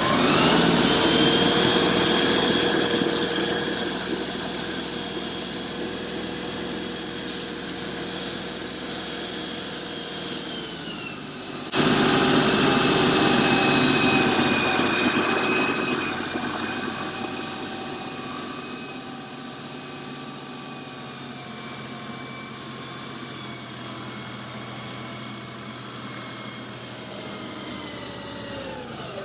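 A vehicle engine revs up and holds a steady, high-pitched drone, easing off about ten seconds in; after an abrupt cut another steady engine drone slowly winds down in pitch and level.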